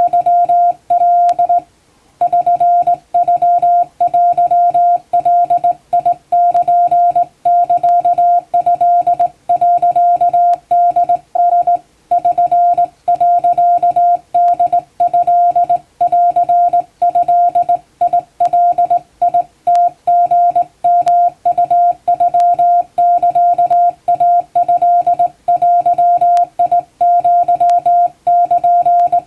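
Hand-keyed Japanese Wabun Morse code: a single steady tone switched on and off in dots and dashes, with short pauses between characters and one longer break about two seconds in.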